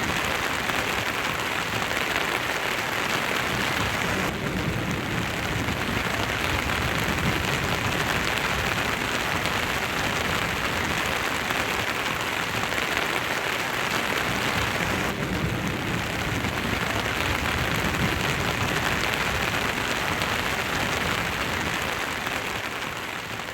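Steady rain falling, an even hiss of drops, fading out near the end.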